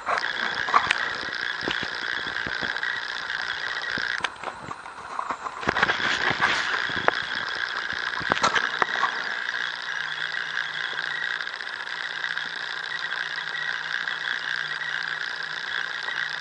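A wooden match being handled and struck against its matchbox, with scattered clicks and scrapes over the first nine seconds or so, then the match burning as it lights a scrap of paper. Under it runs a steady high hiss made of several pitched bands, which drops out briefly about four seconds in.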